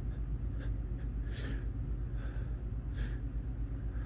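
A person drawing about four short, sharp breaths in through the nose, the second the strongest, as a sneeze builds: the lead-up to a photic sneeze set off by looking into bright sunlight.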